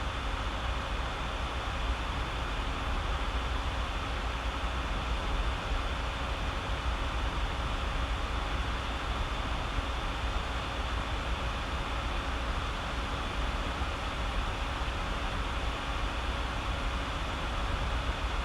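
Steady hiss with a low hum, unchanging throughout: constant background noise such as a fan or recording hiss.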